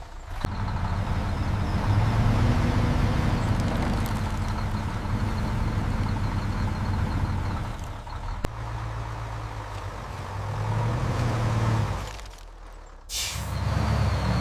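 A heavy machine running with a steady low hum. It dies away about twelve seconds in, then a sudden hiss bursts in and the hum comes back.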